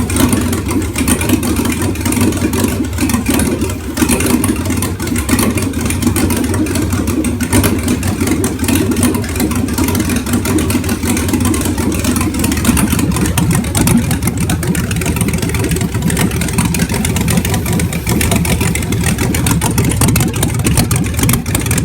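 Freshly rebuilt 6.0-litre LQ4 V8 running steadily on an engine test stand.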